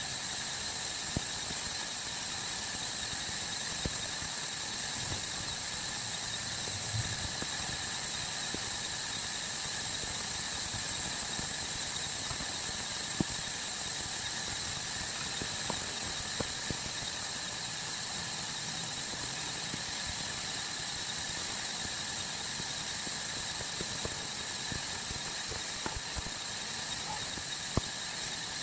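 Sawmill saw running with a steady high-pitched whine and hiss, with a few faint ticks.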